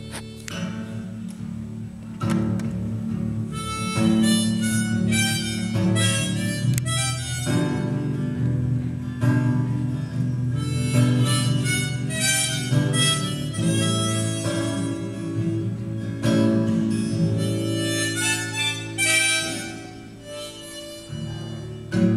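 Harmonica playing a melody in phrases over acoustic guitar chords, the instrumental intro of the song before the vocals.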